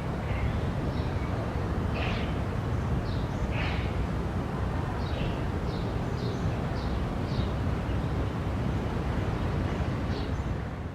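Outdoor ambience: a steady low rumble of wind on the microphone, with birds chirping over it in short, repeated high calls and a couple of louder falling calls about two and three and a half seconds in.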